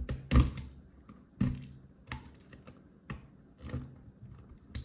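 Hand wire cutter snipping off the excess ends of Cat5e/Cat6 conductors punched into a patch panel: a series of sharp clicking snips, about seven, spaced irregularly. The cuts are needed because the blade-less punch-down tool does not trim the wires.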